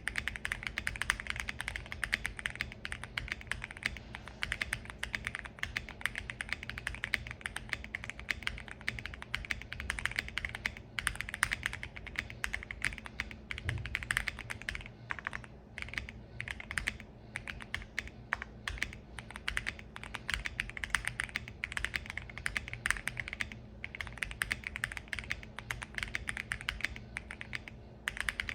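Fast continuous typing on a Monsgeek M1 mechanical keyboard with lubed Akko POM Silver linear switches, tape mod and no foam, in dense runs of key clicks broken by brief pauses, with a faint steady low hum underneath.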